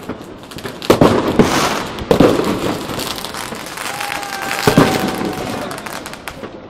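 Many fireworks and firecrackers going off around the city: repeated sharp bangs, loudest about a second in and again near two and five seconds, over a constant crackle of more distant explosions. A steady whistle sounds from about four seconds in for a second or so.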